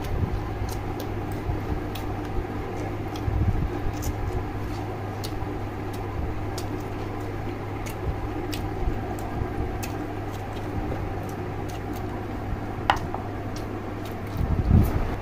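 Close-up eating noises of a man eating boiled chicken and raw cabbage leaves by hand: many short sharp clicks of chewing and lip-smacking, with a couple of louder low thuds, over a steady low hum.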